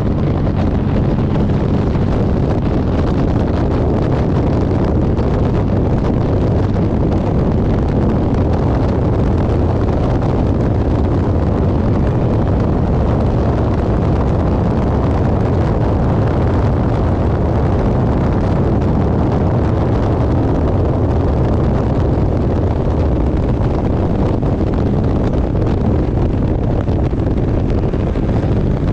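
Race car's GM engine running steadily under power, loud and constant, with wind noise.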